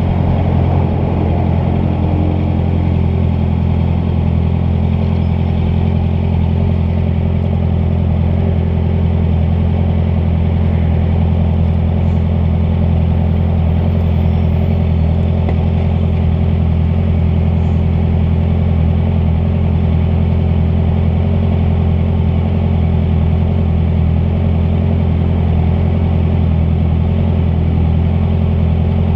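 Honda CBR650F motorcycle's inline-four engine running steadily at constant low revs, its pitch unchanging throughout.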